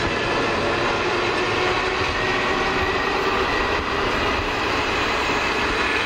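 Trenitalia ALe 642 electric multiple unit running on the line: a steady rumble of wheels on rail, with several steady whining tones from the train over it.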